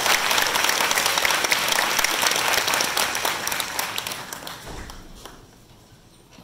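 Audience applause, many people clapping together, which thins out and dies away over the second half.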